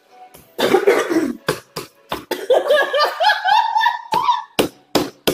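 A person laughing, with a run of wavering pitched laughs in the middle, over sharp pops and clicks from hand-pressed slime, which is squashed flat on the tabletop.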